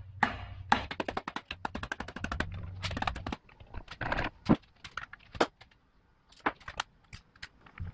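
Metal hand tools rattling and clinking: a fast run of sharp clicks, about ten a second, for a couple of seconds, then scattered single clinks with short gaps between them.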